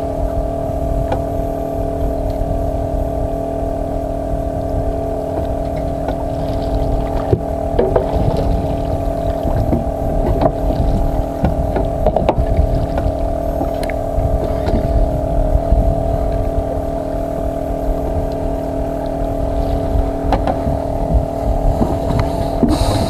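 Boat engine running steadily at an even speed, with wind rumbling on the microphone.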